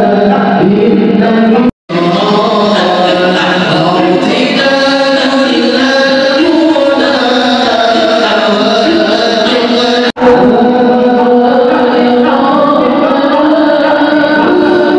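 A group of voices singing a devotional chant in chorus, with music behind it. The sound cuts out for a split second about two seconds in and again about ten seconds in.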